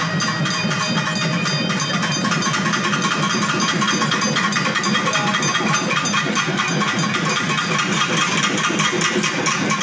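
Steady, dense music.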